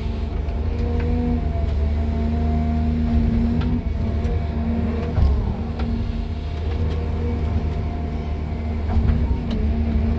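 Excavator's diesel engine and hydraulics running steadily, heard from inside the cab, with a strong low hum and a few faint clicks and a single knock about five seconds in.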